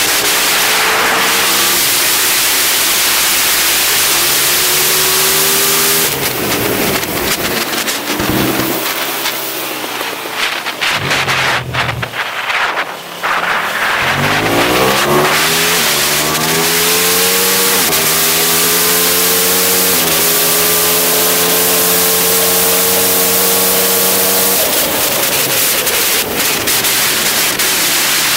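Aprilia SXV 550 supermoto's V-twin engine through a full titanium Akrapovic exhaust, at race pace on track. The pitch repeatedly climbs and drops back in quick steps as it upshifts, holds steady on a straight, then falls away as the throttle closes near the end. A steady rush of wind runs over the onboard microphone.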